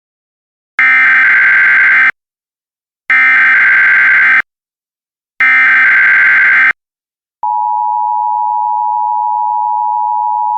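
Emergency Alert System SAME header: three harsh digital data bursts, each just over a second long with short gaps between them. About seven seconds in, the steady two-tone EAS attention signal starts and holds on.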